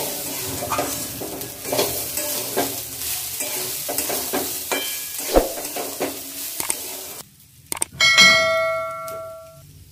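Rice and vegetables sizzling as they fry in a steel kadai, stirred and scraped with a metal spatula. About seven seconds in, the frying sound cuts off and a bell-like ding rings for about a second and a half: a subscribe-button notification sound effect.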